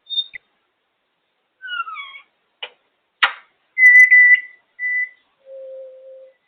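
African grey parrot vocalising: a short high whistle, a pair of falling whistles, two sharp clicks, then a loud steady whistle, a shorter repeat of it, and a lower held note near the end.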